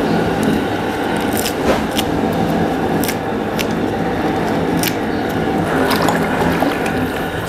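A large aluminium pot of rice water boiling hard, a steady bubbling with scattered pops, and near the end a hand squishing and splashing among the mint leaves in the pot.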